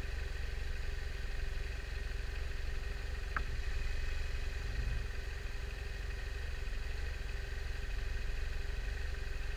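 Motorcycle engines idling at a standstill: a steady low rumble, with one brief high chirp about three and a half seconds in.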